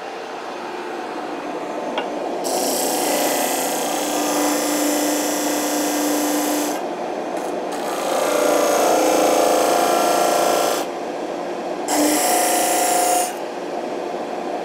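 A 12-inch Central Machinery disc sander runs with a shop vac attached to its dust port, while wood is pressed against the coarse-grit disc. The loud grinding hiss of sanding starts a couple of seconds in and comes in several passes, with short breaks where the wood is lifted off and only the motors run.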